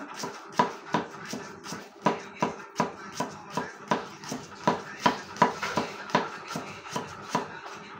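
Kitchen knife slicing garlic on a thick wooden chopping block: a steady run of sharp taps, about three a second, as the blade strikes the wood.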